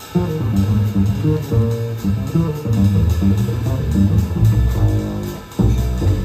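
Upright double bass played pizzicato, a quick run of plucked low notes with a short break about five and a half seconds in.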